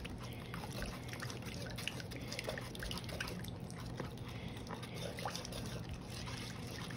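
A spoon stirring a runny honey and lime marinade in a stainless steel bowl: wet sloshing with many small clicks of the spoon against the metal.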